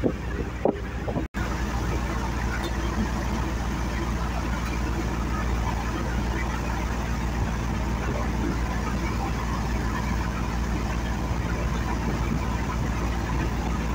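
A boat's engine running steadily, with a split-second dropout about a second in.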